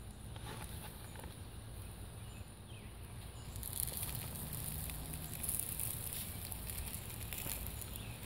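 Beef burger patties sizzling faintly on a pit grill's grate over the fire, with a light hiss and scattered crackles that grow louder a few seconds in, over a steady low outdoor rumble.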